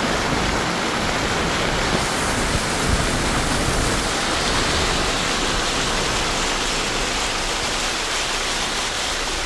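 Steady rush of water from a car driving along a flooded road in the rain: tyres churning through floodwater, with rain falling.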